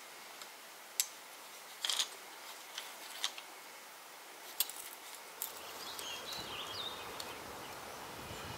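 A handful of small, sharp metallic clicks and scratches as a steel point picks rust out of the pits in a clamped dagger blade, with a little cluster of them about two seconds in. After about five seconds they give way to a soft, steady background with a few faint high chirps.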